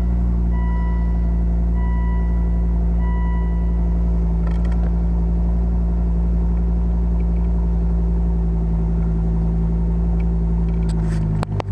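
Volvo S60R's turbocharged 2.5-litre five-cylinder engine idling steadily just after start-up, heard from inside the cabin, running to circulate fresh oil after an oil change. A dashboard warning chime beeps about four times in the first three seconds, and a few light clicks come near the end.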